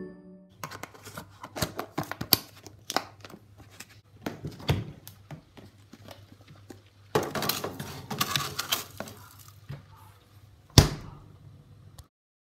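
Plastic food tubs and frozen-food bags clicking, knocking and crinkling as they are moved about in a fridge-freezer's freezer compartment, over a low hum. The freezer door shuts with a thud near the end.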